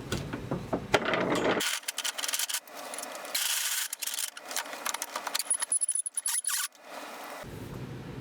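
A hand tool rubbing and scraping on the end of a turned wooden handle in irregular strokes, as the rough drive-center nub is taken off and the end smoothed. A steady low hum is under the start and the end.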